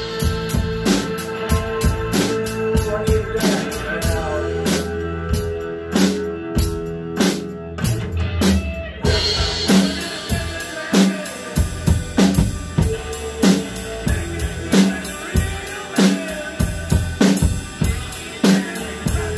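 Tama acoustic drum kit played in a steady beat: bass drum, snare and cymbals struck in a regular rhythm, with a crash about nine and a half seconds in.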